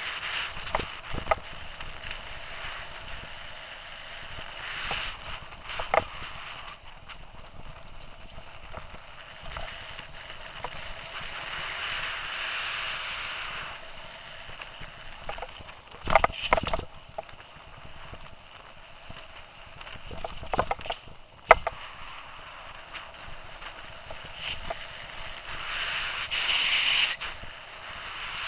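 Mountain bike rolling fast over a dirt forest trail: a steady rush of tyre and air noise with rattles and several sharp knocks as the bike bounces over bumps, and a louder rush of noise near the end.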